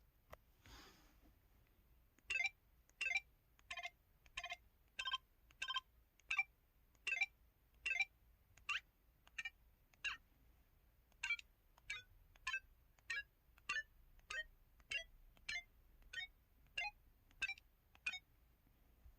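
LG-KU2800 mobile phone's '8 Bit' keypad tones: a short electronic beep for each key press, about one press every two-thirds of a second. The pitch changes from key to key. The run starts about two seconds in and stops near the end.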